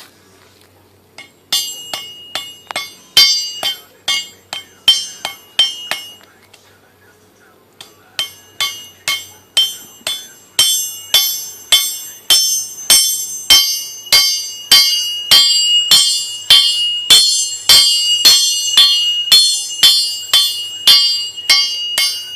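Hammer blows on hot steel on an anvil, forging a knife blade: sharp ringing strikes, about two a second, with a break of a couple of seconds early on and a steady run of strikes after that.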